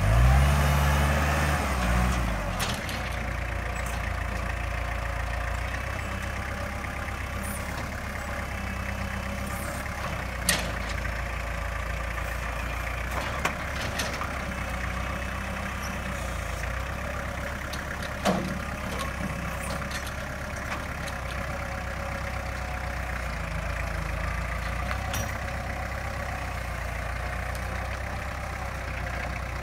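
Kubota compact tractor's diesel engine running under load as its front loader works an uprooted tree stump, its pitch shifting in the first couple of seconds before settling to a steady run. A few sharp knocks stand out over the engine.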